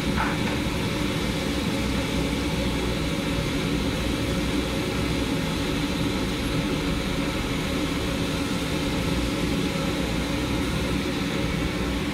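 Steady low rumble of street traffic mixed with the sizzle of chicken pieces deep-frying in a large wok of bubbling oil.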